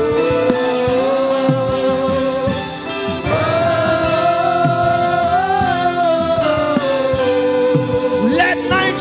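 Gospel worship music: a voice holds long, slightly wavering notes over sustained instrumental backing, stepping up to a higher note a few seconds in and settling back down, with quick vocal runs near the end.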